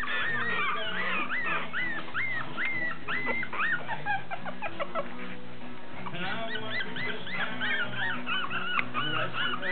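Toy poodle puppies whimpering: a run of high, rising-and-falling whines, several a second, easing off around the middle and picking up again, over background music.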